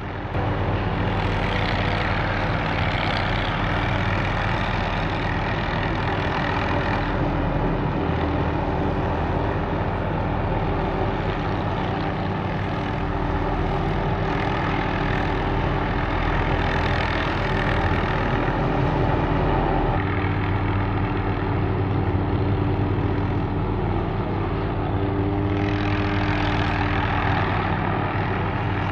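MD 500D helicopter working with a suspended aerial saw to trim trees: a steady engine and rotor drone whose higher noise swells several times.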